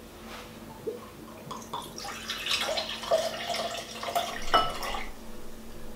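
Palm wine poured from a glass bottle into a drinking glass, splashing and gurgling mostly from about two seconds in to about five seconds in.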